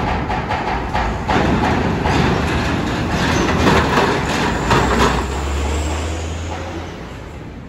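Heavy diesel trucks driving off a ferry over its steel ramp: engines running while tyres clank and clatter over the ramp's plates, loudest as a truck passes close, followed by a steady deep engine drone that fades near the end.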